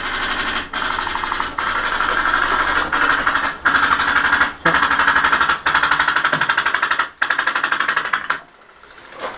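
Airsoft electric guns firing full-auto in long bursts, a fast even rattle broken by short pauses, stopping a second before the end.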